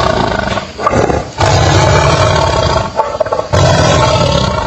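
Tiger roaring: three long, deep roars, the first already under way at the start, each lasting about a second, with short breaks between.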